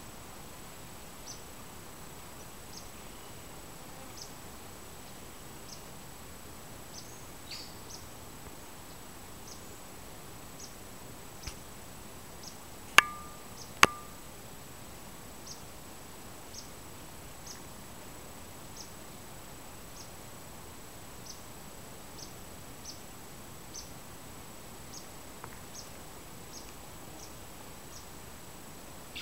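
Quiet forest ambience with short, high insect ticks about once a second over a steady thin high tone. Two sharp clicks, about a second apart, stand out about halfway through.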